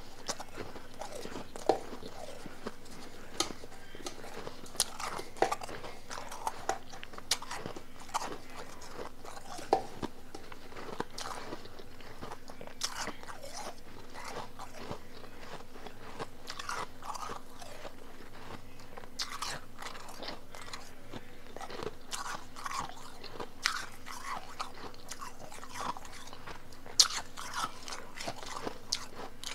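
Close-miked crunching and chewing of powdery blender-crushed ice, in irregular sharp crunches.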